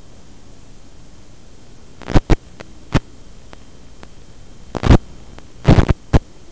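Steady hiss of an analog FPV video link's audio, broken by loud, sharp bursts of static about two, three, five and six seconds in.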